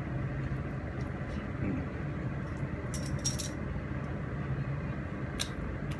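Quiet eating sounds: a few small clicks and smacks from eating by hand and chewing, a cluster about three seconds in and one more near the end, over a steady low background hum.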